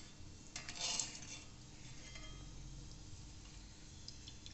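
Wire spider strainer clinking and scraping against an aluminium kadai as fried dried red chillies and curry leaves are scooped out of hot oil. It is loudest about a second in, then faint.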